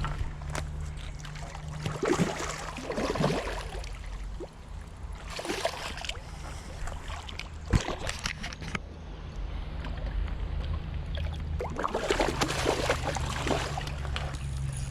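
Water splashing and sloshing in irregular bursts beside a kayak as a hooked carp is brought alongside to be landed, with one sharp knock about eight seconds in, over a low steady hum.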